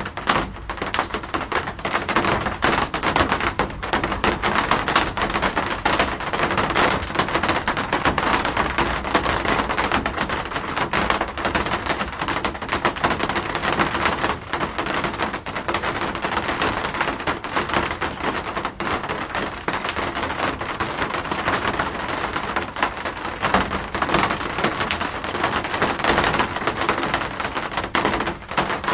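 Steady heavy rain: an unbroken stream of individual drops striking a hard surface, heard as dense, rapid tapping over an even hiss.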